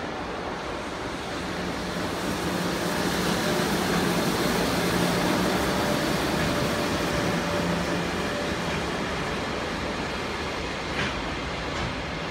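An EF66 electric locomotive passes at speed hauling a container freight train. Its hum swells as it arrives about two seconds in, then the container wagons run past with a steady rolling rumble. There is a brief sharp click near the end.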